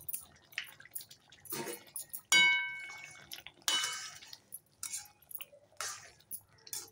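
Metal spoon stirring a wet curry in a steel pan: scattered scrapes and knocks against the pan, with one loud ringing clang a little over two seconds in and another sharp clink near four seconds.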